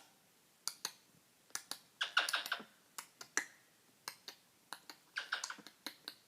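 A talking pet bird making a run of sharp tongue and beak clicks, with two quick bursts of short chirping notes, about two seconds in and again near five seconds.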